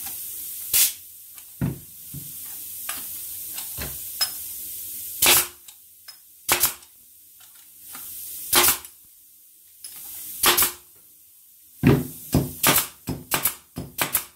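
Silverline pneumatic air stapler firing staples into softwood, each shot a sharp crack. The shots come singly a second or two apart, then in a quick run near the end. The tool is cycling without jamming, its once-seized driver bar now returning after each shot.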